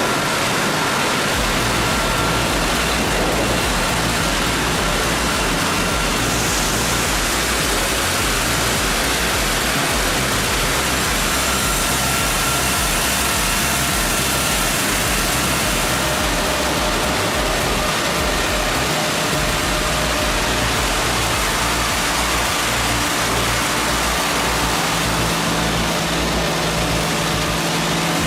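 Loud, steady machinery noise, a dense unbroken din with faint steady tones in it and no pauses.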